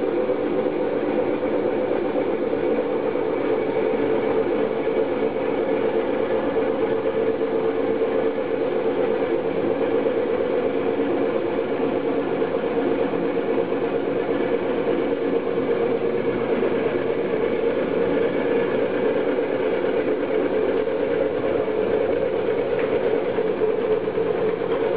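Homemade magnet motor, a shaft of disc-magnet rotors coupled to a dynamo, running at a steady speed: a continuous mechanical hum with several steady tones.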